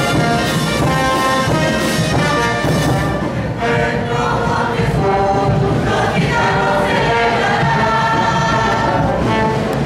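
Live devotional music of a brass band playing a hymn in long held notes, with voices singing along.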